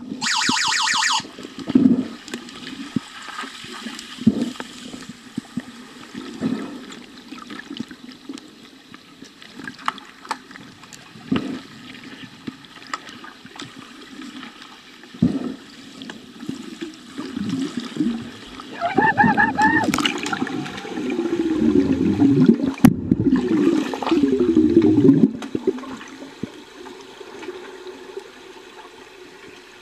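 Muffled underwater sound recorded in a pool: water churning and bubbling from swimmers' fins, with scattered dull knocks and a louder burst of churning about 21 to 25 seconds in. A brief buzzing tone sounds at the very start, and a shorter one about twenty seconds in.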